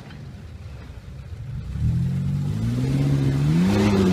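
4x4 SUV engine under hard throttle on a steep dirt climb: it eases off to a low rumble, then from about two seconds in revs up again, its pitch rising steadily.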